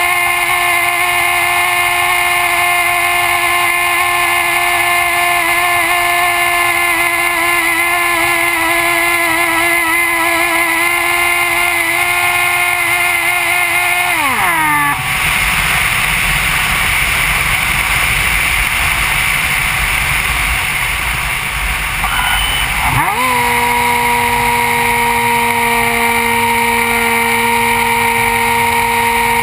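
RC flying wing's electric motor and propeller heard from a camera mounted on the airframe, whining at a steady pitch. About halfway through the throttle is cut and the whine falls away sharply, leaving wind rushing past for about eight seconds; then the motor spins back up to a steady, lower-pitched whine.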